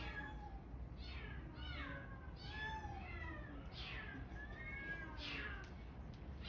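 Stray cats meowing: a string of drawn-out, rising-and-falling meows one after another, some overlapping, over a steady low hum.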